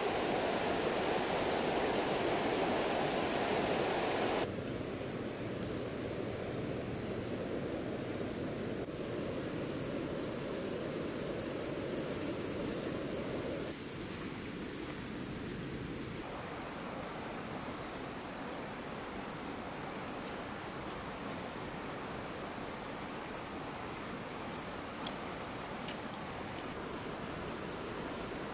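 Steady outdoor noise, at first a louder rushing hiss with no tone. From about four seconds in, an insect keeps up one unbroken high-pitched whine over softer ambient noise.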